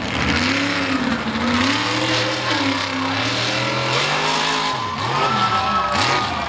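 Mega mud truck's engine revving hard under varying throttle, its pitch swooping up and down, with a few quick rev dips near the end.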